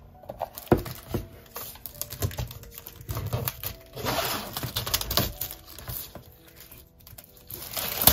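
Plastic shrink wrap on a sealed photo-card binder crinkling and crackling under the fingers as it is handled and unwrapped, in quick irregular clicks that are busiest in the middle.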